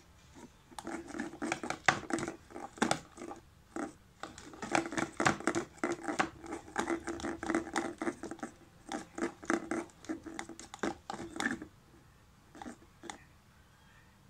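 A cat pawing around inside a partly open drawer, making dense, irregular clicks and knocks of small objects and claws against wood, stopping about twelve seconds in after a couple of last clicks.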